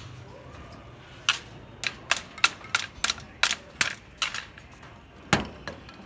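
Steel rebar tying hook and tie wire clicking against rebar as a wire tie is twisted: a run of about ten sharp metallic clicks, roughly three a second, then one louder knock about five seconds in.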